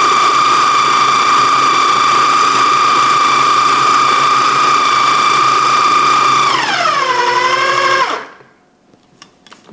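Food processor motor running at full speed with a steady high whine while pureeing a marinade into a paste. About six and a half seconds in the whine drops in pitch as the motor winds down, and it stops about a second later.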